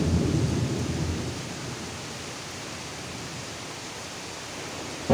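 Thunder rumbling low and dying away over the first second or two, then steady rain hissing on.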